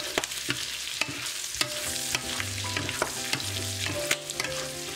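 Abalone and sliced garlic sizzling in butter and oil in a nonstick frying pan. They are stirred with wooden spatulas, with frequent sharp clicks and scrapes of wood against the pan over the steady sizzle.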